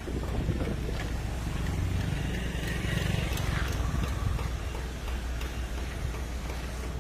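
Large diesel engine of a sleeper coach idling steadily, a low, even hum.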